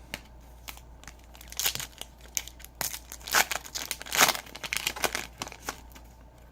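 A trading-card pack wrapper being torn open and crinkled by hand, an irregular run of crackling and tearing, busiest in the middle.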